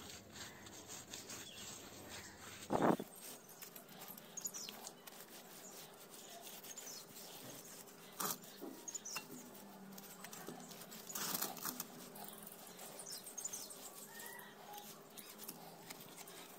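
Faint wet rubbing and dabbing as a damp cloth smooths fresh mud plaster over a clay stove, with a few short bird chirps in the background and one brief louder thump about three seconds in.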